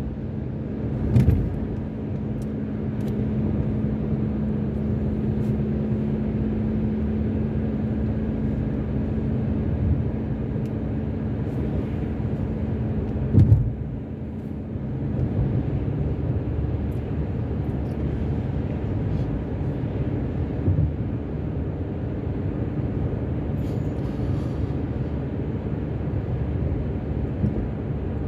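Car driving at motorway speed, heard from inside: steady road and engine noise with a low hum, and a short thump about a second in and another about halfway through.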